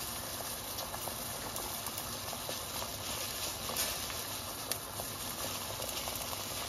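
Chicken pieces boiling in water in a stainless steel pot at a rolling boil: a steady bubbling hiss, dotted with many small pops.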